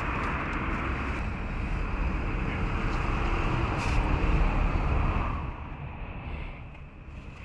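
Car engine running, heard as a steady rushing noise over a low rumble that drops noticeably about five seconds in.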